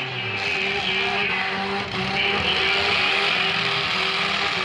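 Demolition derby cars' engines running and revving across the arena, a steady drone of several engine tones with no clear crash.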